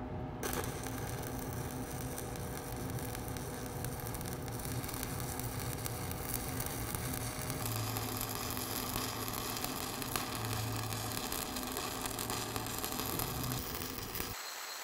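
Stick-welding arc of a 1/8-inch 7018 electrode at about 130 amps during a hot pass: a steady crackling sizzle, with a faint hum underneath, that stops briefly near the end.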